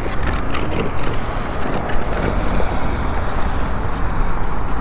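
Steady wind rush on the microphone mixed with road noise while riding an e-bike.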